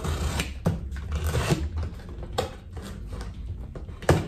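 Utility knife (box cutter) slicing and scraping through the tape and cardboard of a shipping box, in short irregular scratchy strokes, with a single sharp knock near the end as the box is handled.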